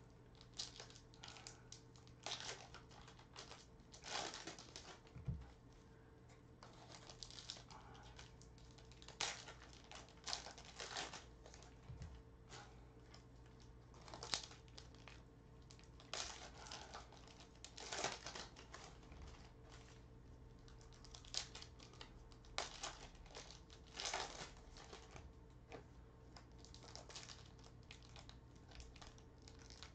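Foil trading-card pack wrappers crinkling and cards being handled and flicked through, as soft scattered rustles and clicks. A faint steady hum runs underneath.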